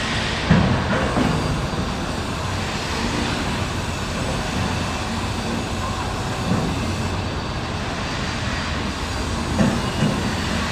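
Heavy machinery running with a steady rumble, with a brief louder knock about half a second in and another near the end.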